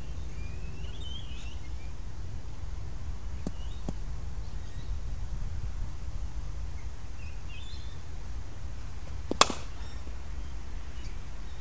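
Birds chirp now and then over a steady low background rumble. About nine seconds in comes a single sharp crack, a cricket bat striking the ball in a shot hit for two runs.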